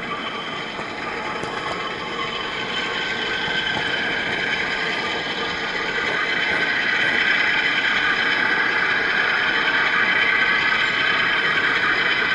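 HO-scale model train running along the track, heard from a camera riding on it: a steady whine from its small electric motor and gears over the rolling of the wheels on the rails. It grows a little louder a few seconds in.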